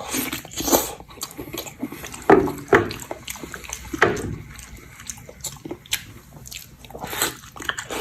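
A person biting and chewing pig ear, with irregular crunches and wet mouth smacks.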